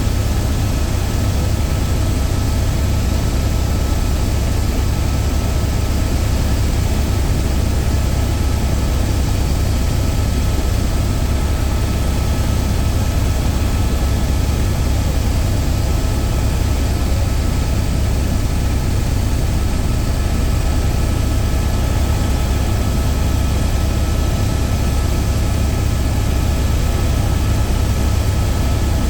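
Helicopter running: a loud, steady, unchanging drone of rotor and engine, with a few faint steady whining tones above it.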